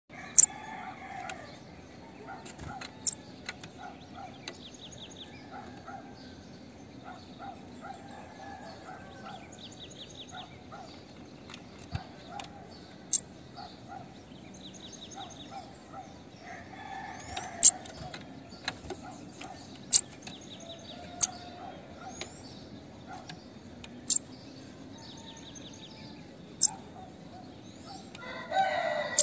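Female bananaquit calling: sharp, very high thin notes every few seconds, mixed with short rapid buzzy trills. A rooster crows in the background, loudest near the end.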